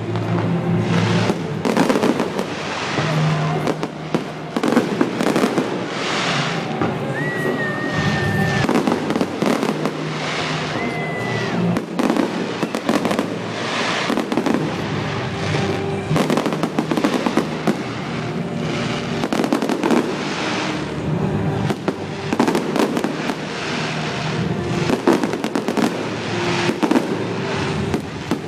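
Fireworks going off in a rapid, unbroken series of bangs and crackles, with music playing underneath.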